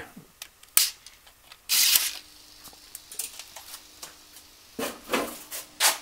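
A sharp click about a second in as the power switch for a model railroad turnout control panel is flipped on by hand, amid rustling and smaller clicks of hands working under the layout. A faint steady hum starts about two seconds in.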